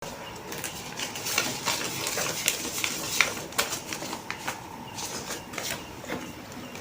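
Paper and plastic packaging being handled, crinkling with many light irregular clicks and taps.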